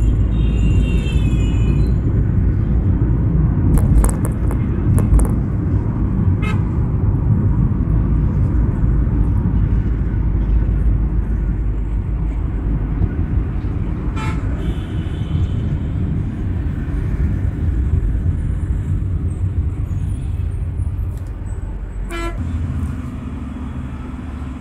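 Road and engine noise heard from inside a moving car in dense city traffic, with other vehicles' horns honking, once clearly about a second in and briefly a few more times. Near the end the rumble drops as the car slows in traffic, leaving a steadier low engine hum.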